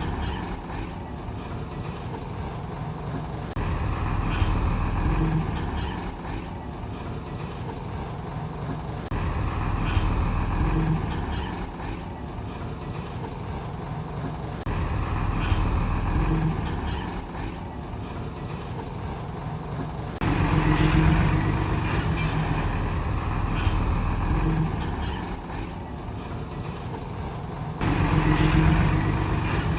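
Heavy diesel earthmoving engine working under load, its sound rising and easing in repeated swells about every five to six seconds, with sudden steps up in loudness about two-thirds of the way in and near the end.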